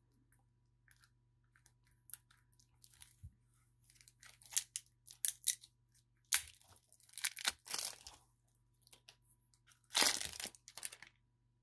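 Clear plastic shrink wrap being torn and peeled off a stack of trading cards: irregular crinkling crackles, with louder tearing about six seconds in, around eight seconds, and near the end.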